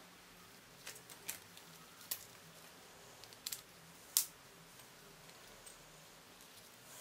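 Light clicks and taps of a soldering-iron cable, plug and plastic handpiece being handled, about six short sharp ticks spread irregularly over the first four seconds, the loudest just after four seconds in.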